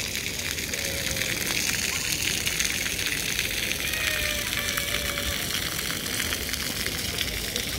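Steady rushing, hissing noise, with a faint distant voice or call for about a second, around four seconds in.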